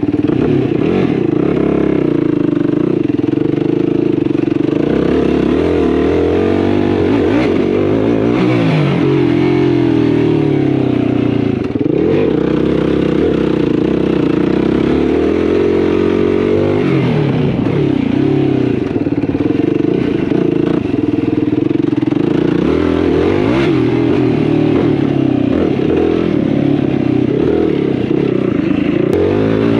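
Yamaha YFZ450R sport quad's single-cylinder four-stroke engine under way, its pitch rising and falling over and over as the throttle is worked on and off, with a brief dip near the middle.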